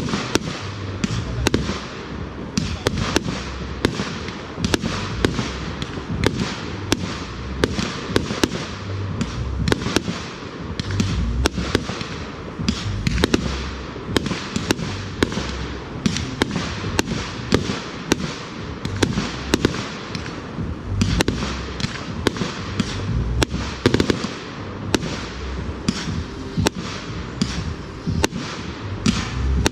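Fireworks display with a dense barrage of sharp cracks and booms, several bangs a second over a low rumbling boom.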